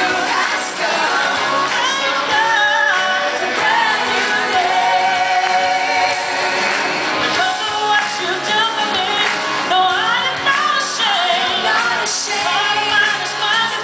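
A gospel-pop song performed live: several singers, men and women, singing into microphones over instrumental accompaniment, with a choir and band on stage.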